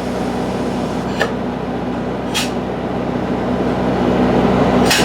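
Steady low drone of running engine-driven machinery, slightly louder toward the end, with three brief sharp clicks or hisses about one, two and a half and five seconds in.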